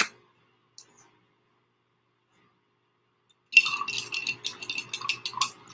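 A single sharp click, then about two seconds later a quick run of clinking and rattling of small hard objects.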